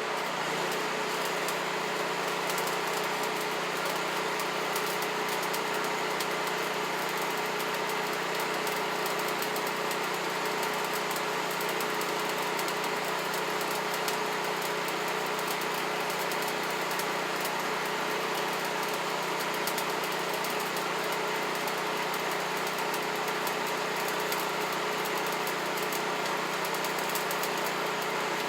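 A machine running steadily at constant speed, a continuous hum that neither rises nor falls.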